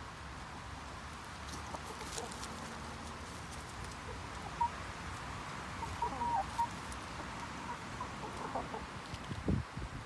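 Hens clucking softly as they forage: a few short, quiet clucks from about halfway through and again near the end.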